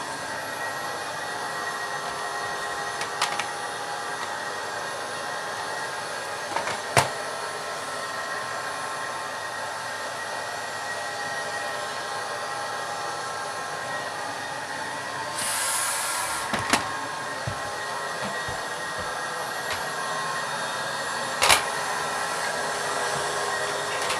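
Vacuum cleaner motor running steadily with a high whine. A few sharp knocks and clicks cut through it, the loudest about seven seconds in and near the end, and there is a brief high hiss a little past the middle.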